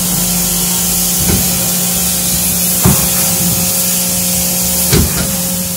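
Pressure washer spraying a steady hissing jet of water onto screen-printing screens in a bathtub, with the steady hum of its pump motor underneath, rinsing the screens out. Three light knocks come through the spray.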